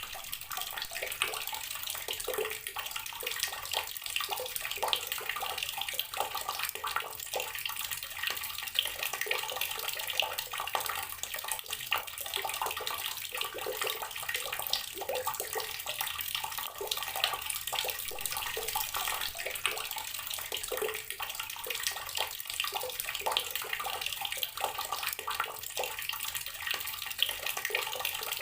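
Outdoor water tap running, a steady stream of water splashing and spattering.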